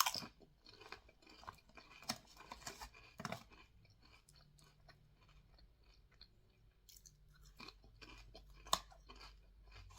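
Close-up chewing of large crunchy potato chips: irregular crisp crunches, dense for the first few seconds, thinning out in the middle, with a few more crunches near the end.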